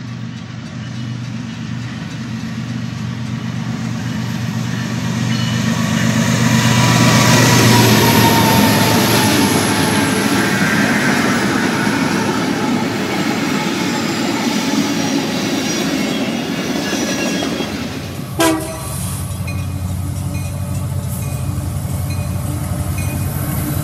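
Norfolk Southern diesel freight locomotives passing close, the engines and wheels on the rails growing louder to a peak about eight seconds in, then easing off. About eighteen seconds in the sound cuts to another diesel freight train approaching, its engine running steadily.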